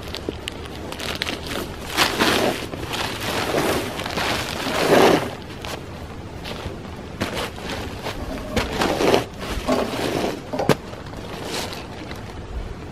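Rustling and scuffing from a rope being handled around a log and footsteps on a tarp and sawdust, with a louder rustle about five seconds in and a sharp knock later on.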